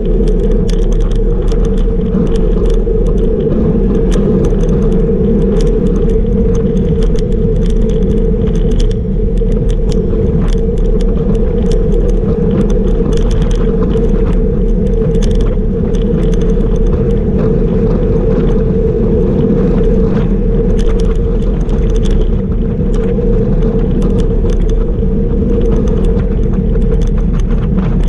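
Steady rush of wind and tyre-on-road noise from a road bike riding at about 37 km/h, picked up by a camera mounted on the bike, with frequent small rattles and clicks from the bike and mount over the road surface.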